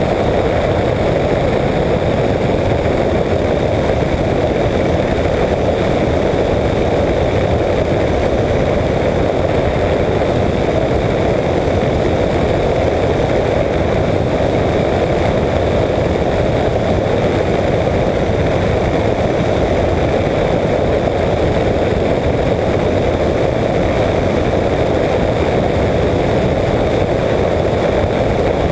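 Apollo Jet Star microlight trike's engine and pusher propeller running steadily in level cruise, buried in steady wind rush on the wing-mounted camera's microphone.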